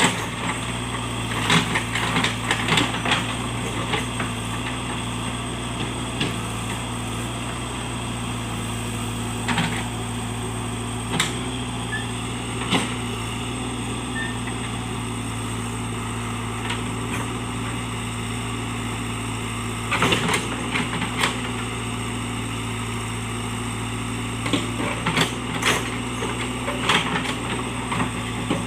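JCB backhoe loader's diesel engine running at a steady speed, with short sharp cracks and knocks every few seconds as it works. The knocks cluster about two-thirds of the way through and again near the end.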